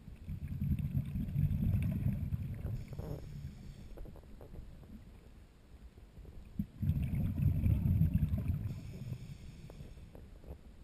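Scuba diver breathing through a regulator underwater: two long exhalations of bubbles rumbling past the camera housing, with quieter inhalations between them.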